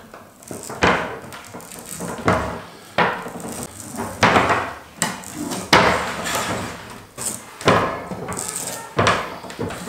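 Old rubber spline cord being tugged out of the groove of an insect-screen frame: a series of sharp scraping rasps, each starting suddenly and fading, roughly one a second.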